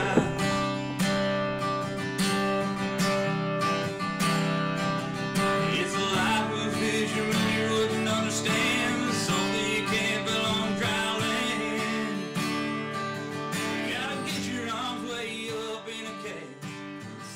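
Country song with strummed acoustic guitar, fading out near the end.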